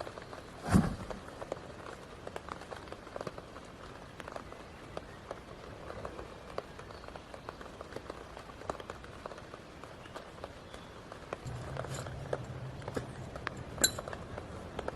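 A person moving about and handling tent gear while pitching a tent: scattered light taps and footsteps, a thud about a second in and a sharp knock near the end. A low steady hum joins in the last few seconds.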